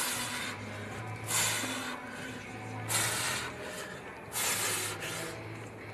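A woman's forceful exhales through pursed lips, one hissing breath with each rep as she curls a heavy 70-pound dumbbell: about four breaths, one roughly every second and a half.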